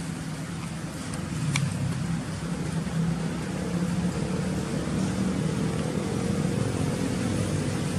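A motor engine running steadily, a low hum whose pitch rises slowly through the second half. A single sharp click about a second and a half in.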